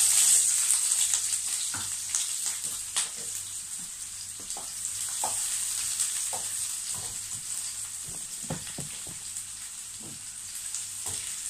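Sliced onion going into hot olive oil in a frying pan and sizzling, loudest as it goes in and easing off over the following seconds. A wooden spatula scrapes and taps the granite-coated pan as the onion is stirred.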